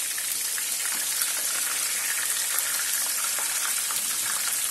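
Marinated chicken pieces frying in hot oil in a pan: a steady sizzle with fine crackling.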